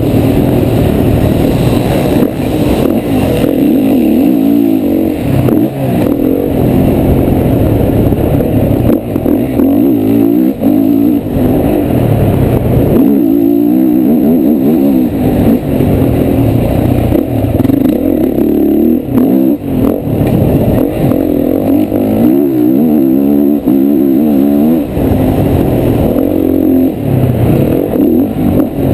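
A 2010 Honda CRF450R's single-cylinder four-stroke engine at race pace, revving hard and easing off again and again, its pitch climbing and dropping repeatedly, heard from the rider's helmet camera.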